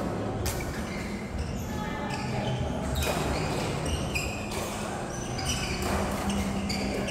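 Doubles racket-sport rally: several sharp hits of the ball, spaced a second or more apart, with voices in the background.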